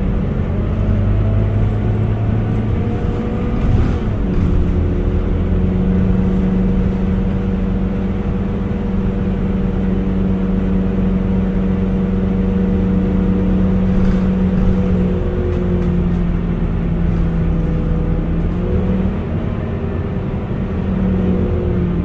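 Scania K230UB city bus's five-cylinder diesel engine and drivetrain running, heard inside the passenger saloon as a steady drone whose pitch shifts a few times as the revs change.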